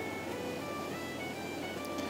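Quiet background music with soft held notes.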